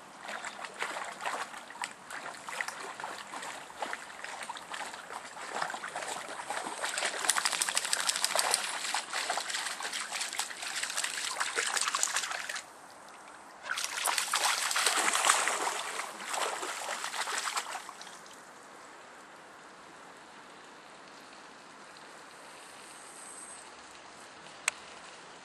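A mixed-breed dog wading and splashing through a shallow stream: quick, irregular splashing and sloshing in two spells, the first breaking off about twelve seconds in and the second starting a second later, before it dies away to a faint steady trickle.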